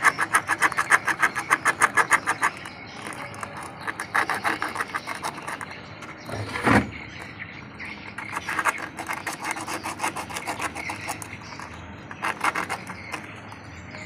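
Sandpaper rubbed quickly back and forth over the corroded metal terminal of a washing machine's door-lock switch, in runs of fast rasping strokes, several a second, with a single knock about halfway through. The corrosion on the contact is what makes the machine throw its intermittent U4 door-lock error.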